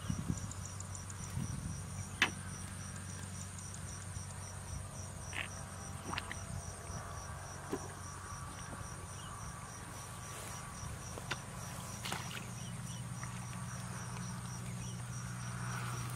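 Insects, cricket-like, chirping continuously in a high, even pulse of about three a second, over a low steady hum. A few short clicks and rustles come through the grass.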